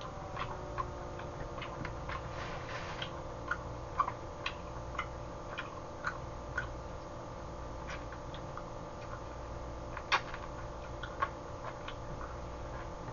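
Scattered small clicks and lip smacks of someone eating boiled chicken with his fingers, picking the meat off the bone, irregularly spaced, over a steady low hum.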